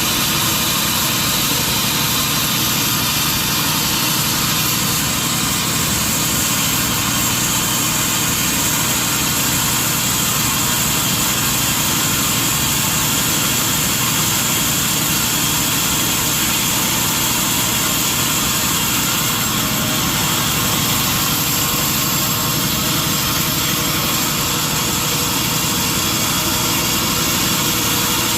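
Sawmill machinery running steadily: a constant loud mechanical noise that holds even throughout, with no pauses or separate strikes.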